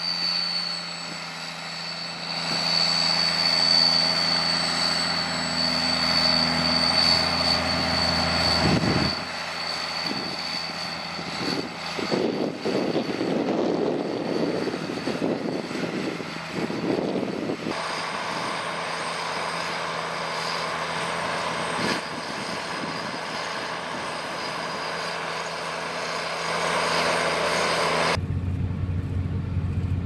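McCormick ZTX 260 tractor's engine running steadily under load as it pulls a five-furrow Kuhn Vari-Master plough through the soil. The sound changes abruptly several times, and near the end it becomes a deeper, steady rumble.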